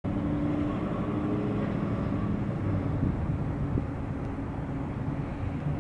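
Steady low rumble of vehicle engines, with a few faint held hums in it.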